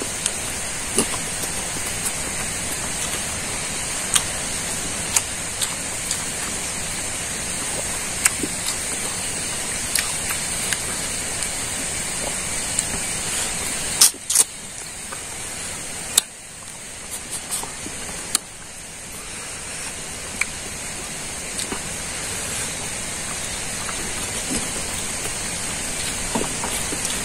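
Chewing and mouth smacks of a man eating rice and meat by hand: scattered wet clicks over a steady hiss. The hiss dips suddenly after a sharp click about 16 seconds in, then slowly returns.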